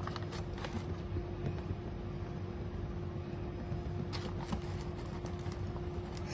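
Steady mechanical hum with a faint held tone, and over it a few faint clicks and scrapes of a spoon scooping gram flour (besan) out of its container: a couple about half a second in and a cluster around four to five seconds in.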